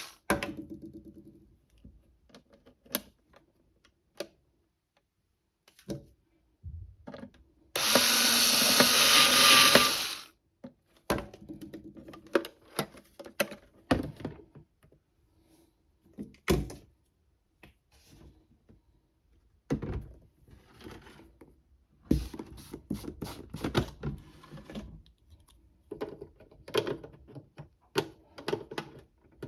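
Toy washing machine's small electric motor whirring for about two and a half seconds, amid scattered plastic clicks, knocks and rattles from handling the toy.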